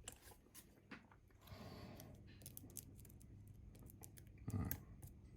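Faint, scattered small clicks and scrapes of a lock pick working the pins of a Bi-Lock cam lock under light tension.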